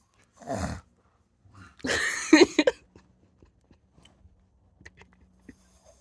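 Snoring: a short snore just under a second in, then a longer, louder snore about two seconds in.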